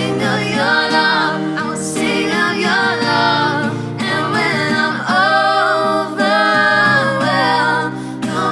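A woman singing a slow worship song over acoustic guitar.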